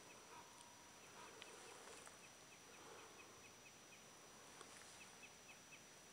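Near silence: faint outdoor evening ambience with a soft, regular high chirping, about three chirps a second.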